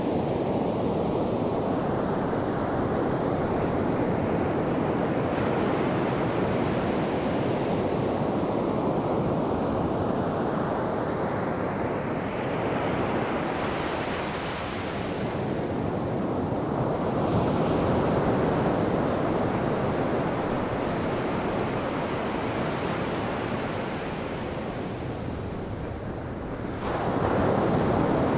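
Ocean surf breaking and washing up a sandy beach: a continuous rushing wash that swells and eases as the waves come in, with a louder wave surging in near the end.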